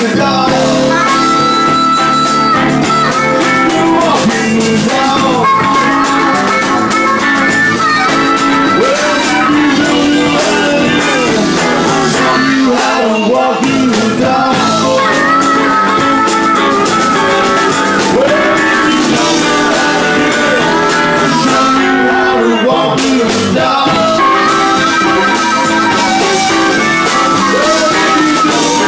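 Live rock band playing a blues-rock instrumental break: harmonica and electric guitar leads over drums, bass and keyboards.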